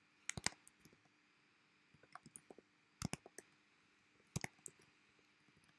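Computer keyboard keystrokes: short bursts of typing, a few clicky keystrokes at a time, separated by pauses.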